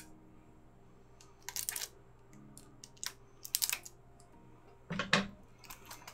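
A plastic Blu-ray case being handled: a few sharp clicks and short crinkling rustles, the loudest about five seconds in.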